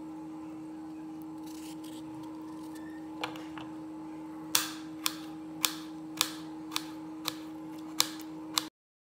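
Kitchen knife clicking against a ceramic plate as a cucumber is sliced into rounds, one tap and then a run of about eight sharp taps at roughly two a second, over a steady low hum. The sound cuts off suddenly near the end.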